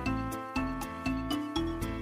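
Background music: a bouncy tune of short, plucked-sounding notes that fade quickly, about four a second.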